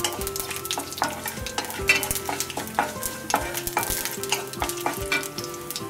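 Wooden spatula stirring and scraping in a metal kadai, with a tempering of mustard seeds, urad dal, cumin and dried red chillies sizzling in hot oil. The stirring comes as many short, irregular scrapes and taps.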